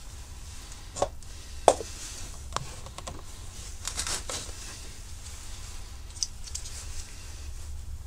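Scattered light knocks and clicks of small objects being handled on a wooden workbench, the sharpest a little under two seconds in and a few more close together about four seconds in, over a low steady hum.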